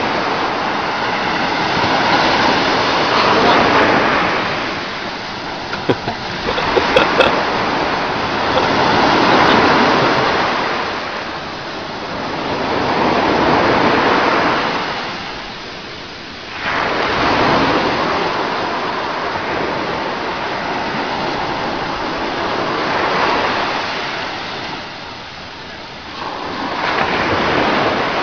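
Sea waves breaking and washing up on a shore, a rushing noise that swells and fades every few seconds. A few sharp clicks come about six to seven seconds in.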